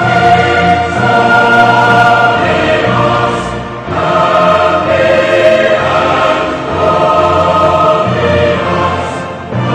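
Background choral music: a choir singing long held notes with accompaniment, pausing briefly between phrases about four seconds in and again near the end.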